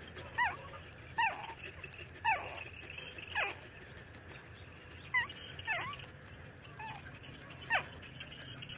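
Nursing puppies whimpering: about seven short, high-pitched squeaks, each falling in pitch, spaced a second or two apart.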